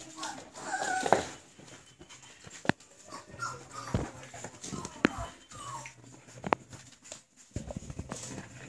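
Boxer puppies whimpering and whining in several short, high-pitched, wavering calls, the loudest about a second in. A few sharp clicks or knocks fall in between.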